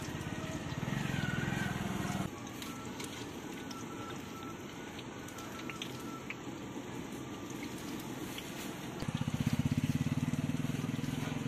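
Vegetable pakoras sizzling in deep oil in a large iron kadai, with small clinks of a metal skimmer against the pan. A low rhythmic drone rises over it briefly early on and again, louder, for the last couple of seconds.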